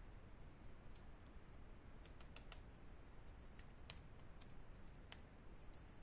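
Faint computer keyboard typing: scattered key clicks in short runs of a few strokes, with pauses between.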